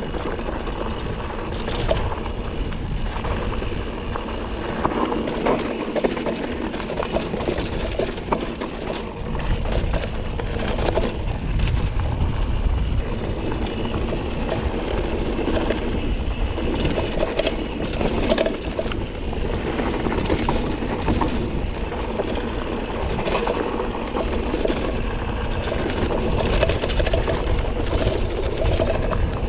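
Mountain bike riding down a rocky trail: tyres crunching over rock and gravel, the bike rattling with frequent sharp knocks, under steady wind rumble on the camera microphone.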